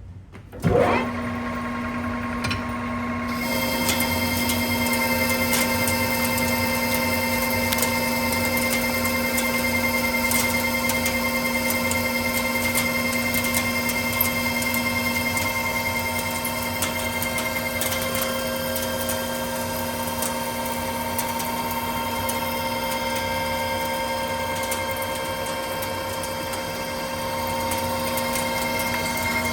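Precision Matthews lathe spindle starting up, its whine rising in pitch about a second in, then running steadily. From about three seconds in, a hiss and crackle joins the whine as the tool takes a facing cut across a pipe flange.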